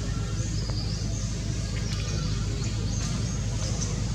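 Outdoor ambience: many short, high chirps repeating over a steady low rumble.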